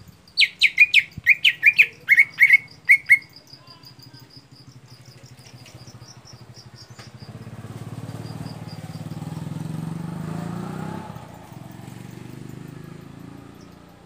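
Caged greater green leafbird (cucak ijo) singing a rapid burst of about a dozen loud, clear whistled notes, each sliding downward, over about three seconds, with an insect's fast high-pitched chirring behind it. Later a motor vehicle's low engine hum swells and fades as it passes.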